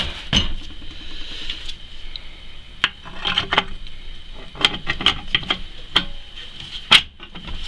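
Scattered metallic clinks and knocks as a steel brake backing plate is handled and fitted over the rear knuckle and wheel hub, the loudest knock about seven seconds in.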